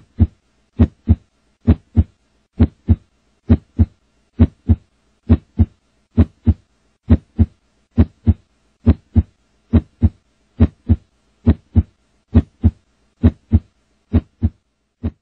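A slow, steady heartbeat: paired lub-dub thumps a little under once a second, the last beat fainter.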